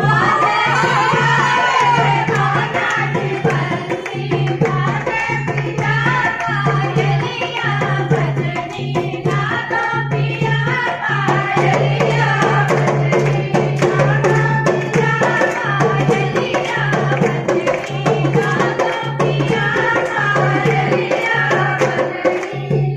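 Women singing a devotional folk song to a steady, evenly repeating drum beat, with hands clapping along.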